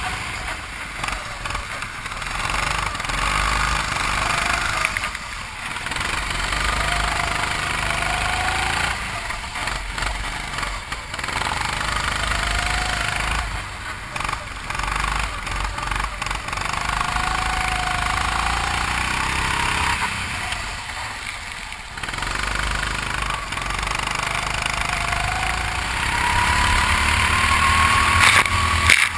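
A 270 cc, 9 hp single-cylinder go-kart engine running under throttle, its pitch rising along the straights and dropping away several times as it slows for corners. A steady rushing noise runs underneath.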